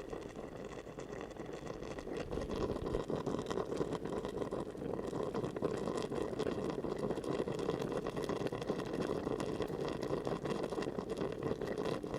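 A pot of pear, radish, jujube, ginger and lemon in honey simmering over medium heat: a steady bubbling with many small pops.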